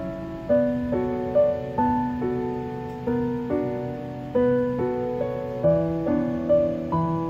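Gentle background music on piano: chords and melody notes struck every half second or so, each ringing and fading before the next.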